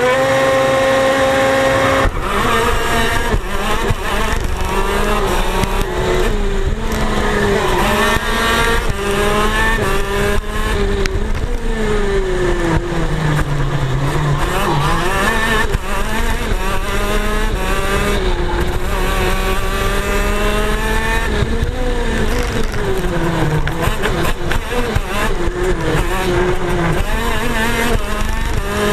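KZ shifter karts racing: their 125cc two-stroke engines rise in pitch, drop back, and rise again, over and over through the gears.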